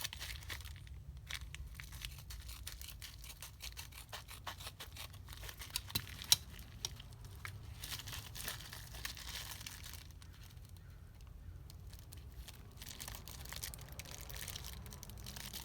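Mail package being torn open and its wrapping crinkled by hand: irregular crackling and tearing, with a sharp snap a bit past six seconds.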